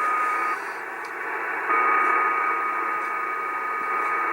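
Icom IC-730 shortwave receiver on 3800 kHz giving out the repeating interference noise on the 75 m band: receiver hiss with a steady whistling tone that cuts off about half a second in and comes back at about 1.7 s.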